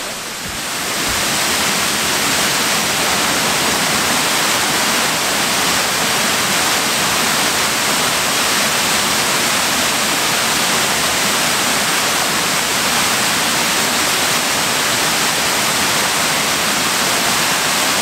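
Sherman Falls, a 17-metre curtain waterfall, pouring over rock ledges: a constant, loud rush of falling water.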